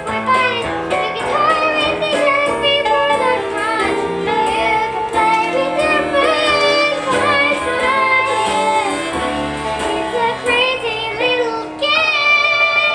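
A young child singing a show tune solo over musical accompaniment, with a long held note near the end.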